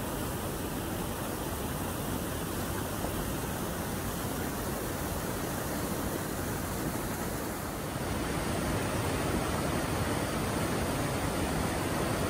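Steady rush of a mountain stream's waterfalls and cascades, running high after heavy rain. The rush gets a little louder about eight seconds in.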